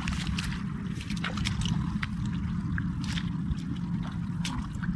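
Hands groping and splashing through shallow muddy water, with irregular small splashes and squelches, over a steady low rumble.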